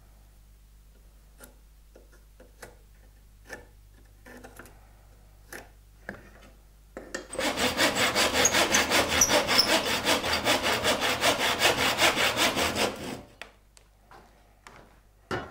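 Hand saw cutting the waste off the tapered end of a wooden rod with quick, even back-and-forth strokes for about six seconds, starting about seven seconds in. Before the sawing there are a few light taps and clicks from marking out with a pencil and square.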